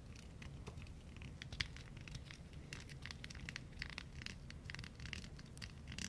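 Faint, close-miked handling sounds: soft, irregular little clicks and scratches from fingers working something right against the microphone.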